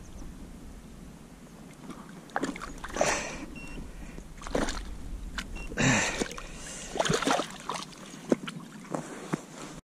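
Water splashing and sloshing in a series of short bursts as a pike is handled in a landing net at the lake surface.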